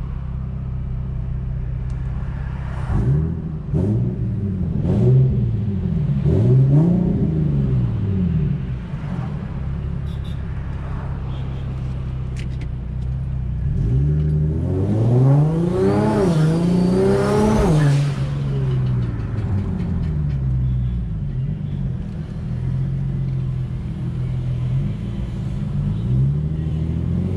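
Turbocharged car engine running steadily, blipped up and down several times, then one hard acceleration with a high whistle rising along with the revs before it falls back to a steady run.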